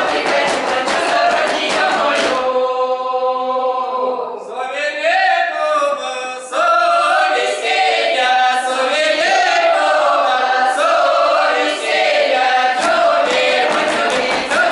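Mixed folk choir of men's and women's voices singing a Russian round-dance (khorovod) song unaccompanied in village style. The voices hold one long note a few seconds in, then move into a shifting melody. Sharp rhythmic beats sound under the singing at the start and again near the end.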